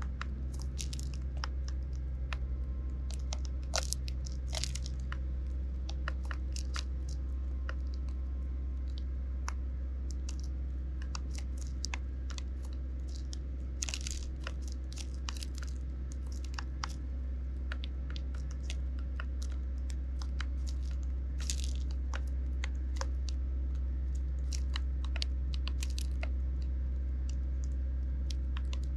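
Eurasian tree sparrows pecking and cracking seed in plastic trays: an irregular run of sharp taps and crunches from beaks on the seed and tray, over a steady low hum.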